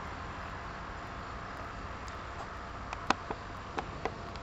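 Quiet outdoor background: a steady hiss, with a few short sharp clicks about three to four seconds in.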